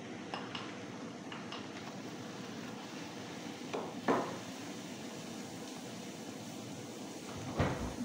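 Kitchenware clatter: a spatula tapping and scraping a glass bowl as lentils are tipped into a frying pan, then two louder knocks about four seconds in as the bowl is set down, and another knock near the end, over a steady hiss.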